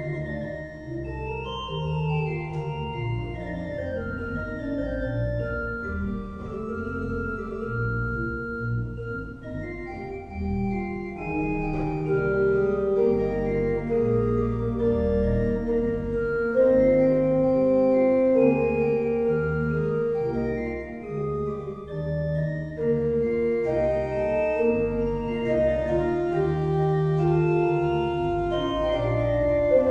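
Background music: an organ playing slow, held chords that change every second or two.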